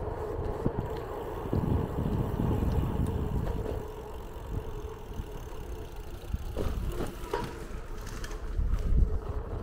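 Wind buffeting a chest-mounted camera's microphone on a moving bicycle: a steady low rumble, with scattered knocks and rattles that increase in the second half as the tyres roll over paving stones, the loudest just before the end.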